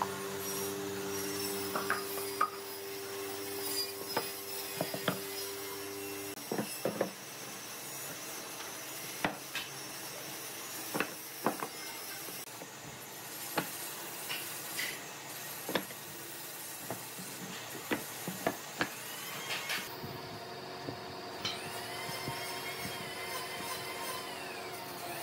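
Wooden blocks knocking and scraping against each other and a wooden workbench as they are stacked and shifted by hand, giving irregular sharp clacks. A steady hum sits underneath.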